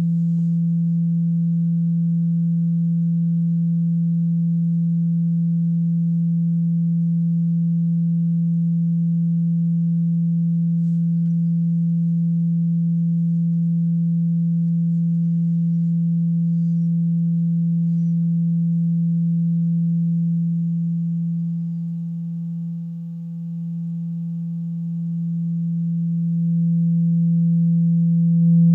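A steady low pure tone from a cymatics setup, the single frequency that drives the vibration pattern. It holds one pitch throughout, softens briefly a little after twenty seconds and swells back up near the end.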